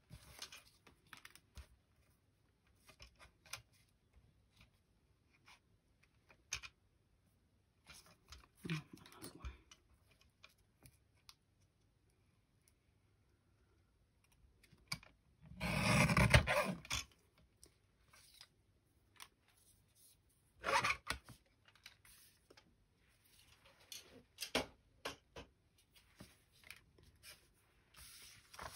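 Sliding paper trimmer cutting strips of cardstock, among scattered clicks and rustles of paper being positioned. The loudest cut, just past halfway, lasts about a second and a half, and a shorter one follows a few seconds later.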